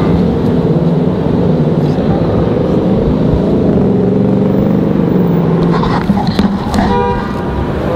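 Road traffic on a busy city street: car engines running and passing close by over a steady low rumble. A brief pitched tone sounds about seven seconds in.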